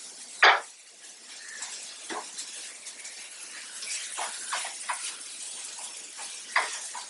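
Tomatoes and curry leaves frying with a steady sizzle, while a wooden spatula stirs them, scraping and knocking against the nonstick pan several times, the loudest knock about half a second in.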